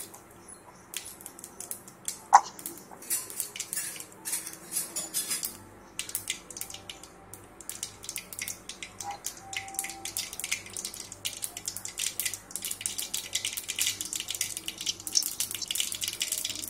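Oil heating in a metal kadai on a gas burner, crackling with many small irregular pops that grow denser toward the end. One sharper clink sounds about two seconds in.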